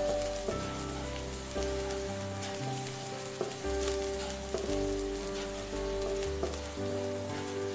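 Minced garlic sizzling in hot oil in a nonstick wok, stirred and pushed around with a spatula. Light scrapes come through over a steady frying hiss, with background music of held notes underneath.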